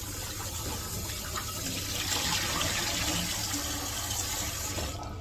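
Kitchen tap running steadily while potatoes are rinsed under it. The water shuts off near the end.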